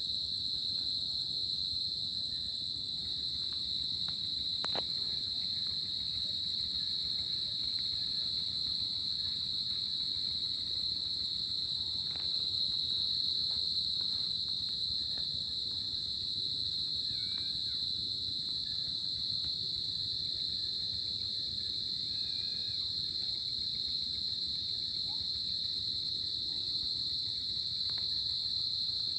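Crickets chirping in a steady, continuous high-pitched chorus that does not let up.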